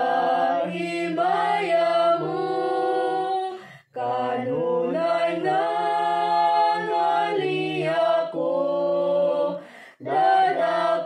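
A woman and two children singing a Cebuano worship song together, holding long notes, with two brief pauses for breath, about four seconds in and again near the end.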